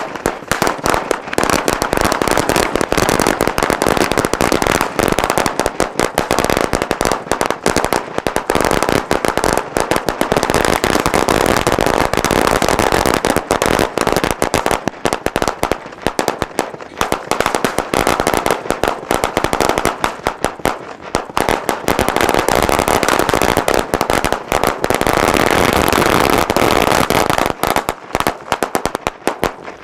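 A 1000-cracker firecracker string (ladi) going off in a rapid, continuous chain of bangs, thinning to scattered pops near the end as it burns out.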